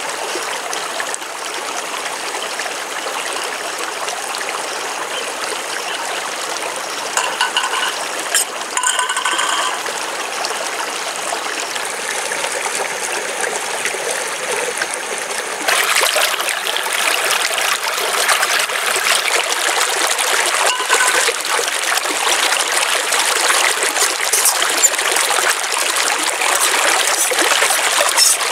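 Shallow stream rushing and trickling over rocks, a steady wash of water noise that turns abruptly louder a little past halfway.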